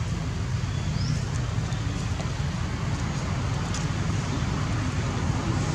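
A steady low rumble of outdoor background noise, with a faint short chirp about a second in.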